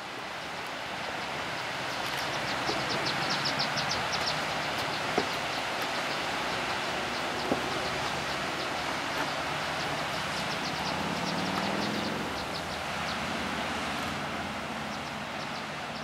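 Steady rushing of hot spring water flowing down travertine terraces, with two runs of rapid high clicking, a few seconds in and again near the end.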